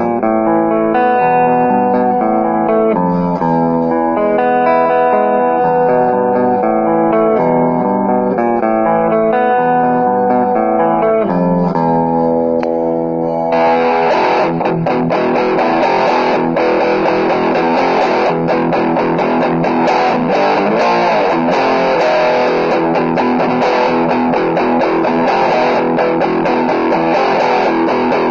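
Maison Les Paul-style electric guitar played through an amp. It starts with picked notes and chords in a cleaner tone, then about halfway through switches abruptly to fast strummed chords with heavy distortion.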